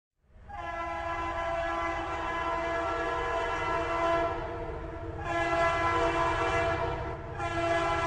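A train sounding its horn in three long, steady blasts over the low rumble of the train running.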